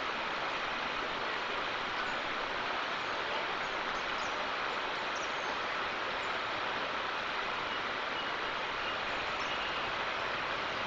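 Steady outdoor ambience: an even hiss with no rise or fall, with a few faint, short, high chirps scattered through it.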